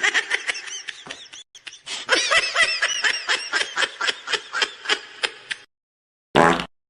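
Goofy laughing sound effect: a long run of short pitched "ha" pulses, about five a second, with a brief lull partway through. A short separate sound follows near the end.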